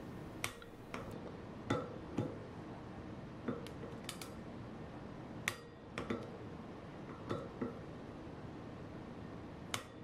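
Sharp metallic clicks from a click-type torque wrench and socket tightening brake disc rotor bolts to 45 inch-pounds. There are about a dozen clicks, spaced unevenly, some in quick pairs. Each wrench click is the sign that a bolt has reached its set torque.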